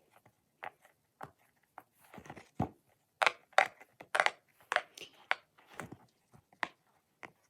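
Hands squeezing and handling a rainbow bear fidget puppet, making irregular crinkling and crackling clicks, more of them and louder in the middle.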